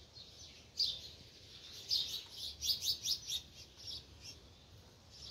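Bird calls: short high chirps repeated irregularly, with a quick run of them about three seconds in.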